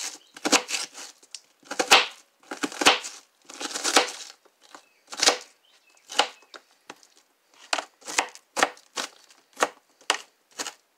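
Kitchen knife cutting an onion on a clear plastic cutting board: uneven strokes about one or two a second, longer slicing strokes in the first half and shorter, sharper taps of the blade on the board later.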